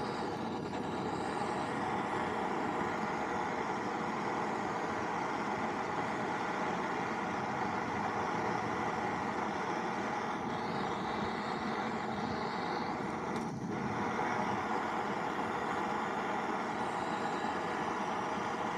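Gas blowtorch burning with a steady hiss, its flame held on the rusted steel of a moped fuel tank to heat the metal before the solder will flow.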